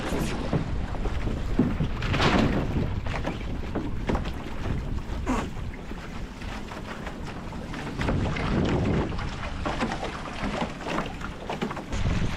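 Wind buffeting the microphone and water rushing and splashing along the hulls of an A-Class racing catamaran under sail. There are a few louder splashes, and the wind rumble dies down in the middle and picks up again near the end.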